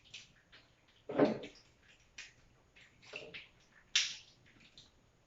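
Kitchen containers and utensils being handled: a few scattered knocks and clatters, with a dull thud about a second in and a sharp clack about four seconds in.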